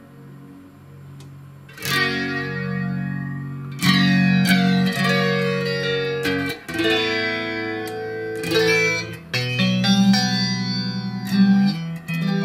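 Electric guitar chords and notes played through an Electro-Harmonix Deluxe Electric Mistress flanger pedal, which is working again on a replacement SAD1024 bucket-brigade delay chip. A fading tail gives way to a fresh chord about two seconds in, with more struck chords following every couple of seconds.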